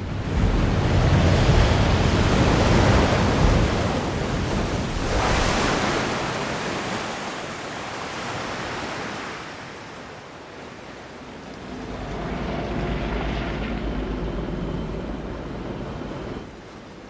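Loud rushing, churning floodwater from a huge wave, heaviest in the first few seconds with a second surge about five seconds in, then easing off. In the second half a low rumbling aircraft drone joins the water as a hovercraft flies over.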